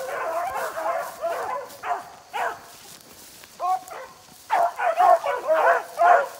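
Beagles baying while running a rabbit's scent trail: repeated rising-and-falling howling cries from several hounds, overlapping. The cries thin out for a couple of seconds midway, then come back louder and thicker near the end.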